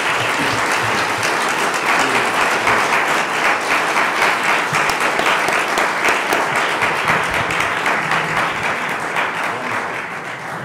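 An audience applauding steadily, dying down near the end.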